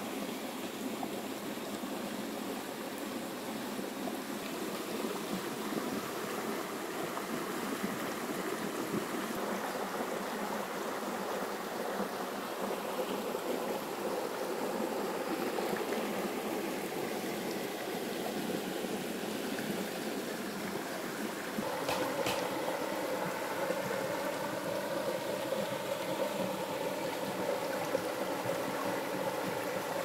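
A shallow river running and babbling over rocks and pebbles. About two-thirds of the way through it grows a little louder and more gurgling, and there is a single click.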